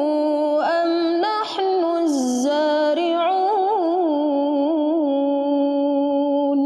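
A woman's voice reciting the Qur'an melodically (murottal) in the bayyati mode, one long ornamented phrase with winding turns in pitch that settles into a long held note near the end.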